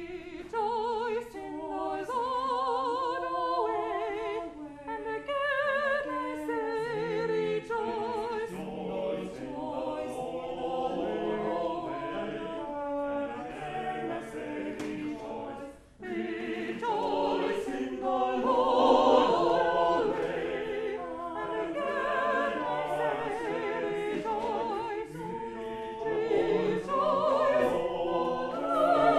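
Small church choir singing in parts, several voices at once with a wide vibrato. The singing breaks off briefly about halfway, then starts again.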